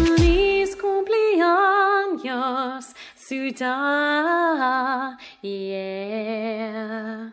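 A woman singing a slow melody alone, with long held notes that waver in pitch and short breaks between phrases, and little or no accompaniment; the singing cuts off abruptly at the end.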